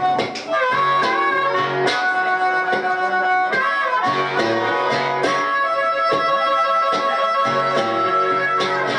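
Blues harmonica playing long held notes with bends, over a strummed acoustic guitar.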